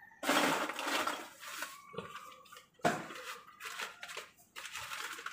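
Rustling of a crumpled paper bag and clattering of metal studs being handled, with one sharp metallic knock about three seconds in.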